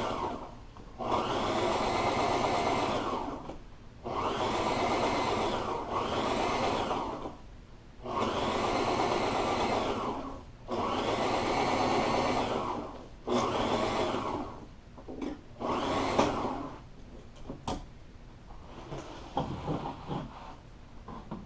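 Sewing machine stitching a foam-backed vinyl upholstery panel. It runs in a series of runs of one to three seconds with short stops between them, and the runs get shorter later on. Near the end the machine stops, leaving only soft rustles and small knocks as the vinyl is handled.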